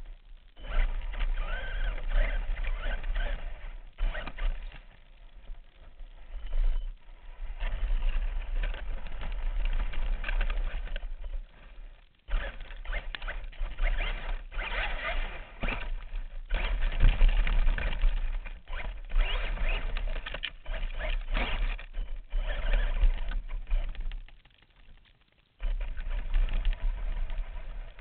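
Radio-controlled truck heard from a camera mounted on it: motor and gear whine with tyres crunching over dirt, gravel and dry leaves, surging in bursts as the throttle is worked and dropping away briefly about twelve seconds in and again near the end.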